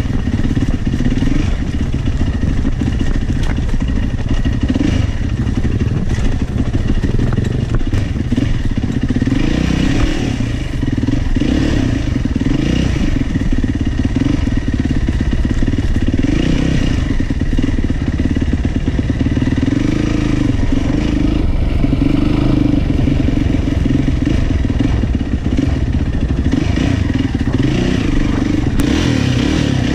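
Single-cylinder four-stroke dirt bike engine running under load on an off-road ride, its revs rising and falling every second or two, with chassis and gear clattering over rough ground.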